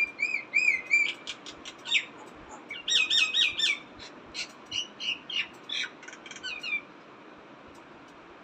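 A bird calling in a quick series of short, squawky chirps and curved whistled notes, in bursts for about seven seconds, then falling silent.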